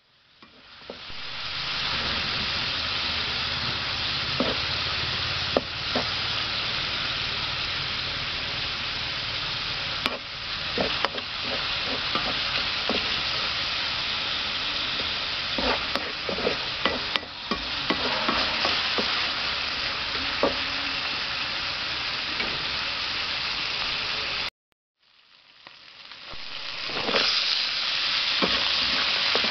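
Chicken pieces sizzling in hot oil in a large wok, with a spatula scraping and clicking against the metal as they are stirred. The sizzle fades in at the start, drops out for a moment about five seconds before the end, and fades back in.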